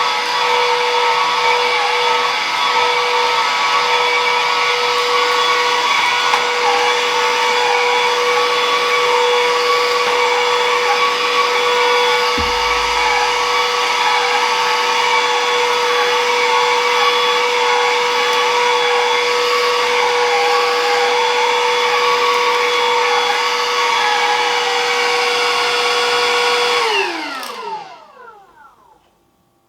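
Stick vacuum cleaner running steadily with a constant high whine over the rush of its motor, then switched off near the end, its whine sliding down in pitch as the motor spins down to quiet. A brief low bump comes about twelve seconds in.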